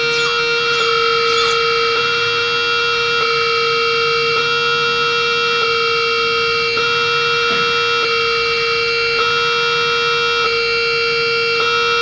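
Live electronic improvisation: a sustained drone of several held electronic tones, pulsing in a pattern that repeats about every 1.2 seconds, with a few quick rising chirps in the first two seconds.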